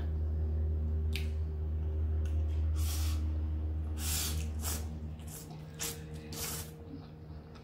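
Mukbang eating sounds: spicy instant noodles slurped off chopsticks in several short wet slurps, the longest about four seconds in, over a steady low hum that fades about five seconds in.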